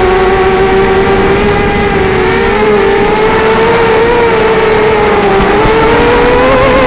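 Quadcopter's four Emax 1804 brushless motors with 5x3 propellers whining in flight, the pitch wavering with the throttle and rising about five and a half seconds in. Heard through the FPV video link's audio, which cuts off the highs.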